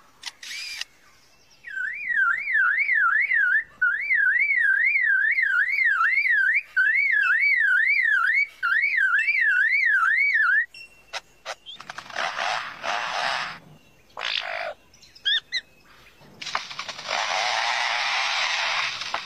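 Lyrebird mimicking: a loud whistle warbling rapidly up and down, about two to three swings a second, for about nine seconds. After it comes a series of harsh, rasping noisy bursts.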